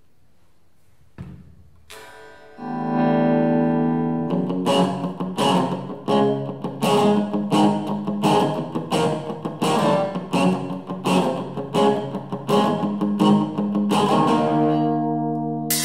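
Rock song's guitar intro: after a near-quiet start with a light tap, a held guitar chord rings in about two and a half seconds in, then rhythmic guitar strokes come about twice a second over it.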